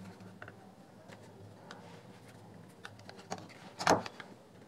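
Faint clicks and scrapes of a circuit board being slid out of a JBL Flip 3's plastic housing, with one louder knock about four seconds in.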